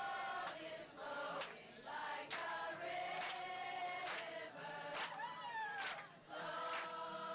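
Music: a song with layered voices singing long held notes over a beat that hits about once a second.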